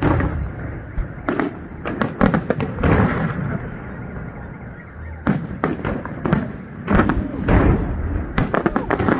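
Aerial firework shells bursting in a display: sharp bangs and crackles coming in quick clusters, with a quieter stretch about midway.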